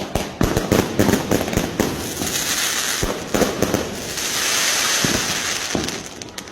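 Diwali fireworks and firecrackers going off: a rapid series of sharp bangs, then a steady hissing crackle from about two seconds in that fades near the end.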